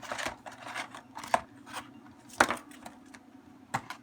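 A thick cardboard product box being handled and opened: rustling and scraping with a few sharp clicks, the loudest about two and a half seconds in.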